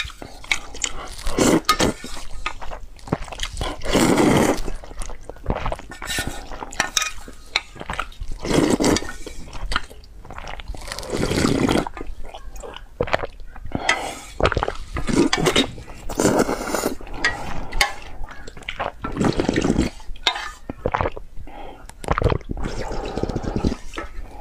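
Close-miked slurping and gulping of hot and sour noodle broth drunk straight from the pot, in a long run of irregular sips and swallows.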